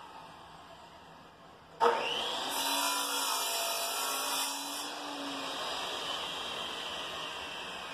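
An electric power tool is switched on about two seconds in. Its motor whine climbs in pitch as it spins up, runs steadily for about three seconds, then winds down.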